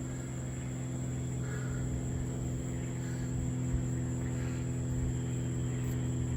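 Steady low mechanical hum, with faint short chirps about every second and a half.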